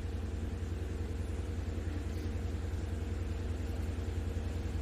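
Steady low hum with a faint even background noise, unchanging and without distinct events.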